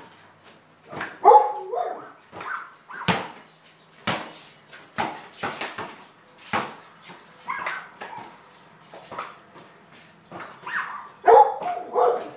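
Border collie barking excitedly at a basketball, with the loudest bursts of barks about a second in and near the end. Between them come many sharp knocks, the basketball bouncing on the concrete garage floor.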